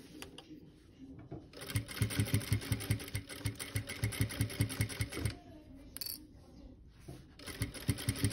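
Sewing machine stitching a quilt binding down in two short runs: a quick, even stitch rhythm from about a second and a half in until about five seconds, a pause with a small click, then stitching again near the end.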